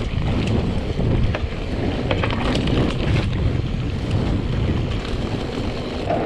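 Wind rushing over the microphone of a mountain bike rider's camera while the bike rolls fast over a dirt trail, with the ride's steady low rumble and scattered clicks and rattles from the bike over rough ground.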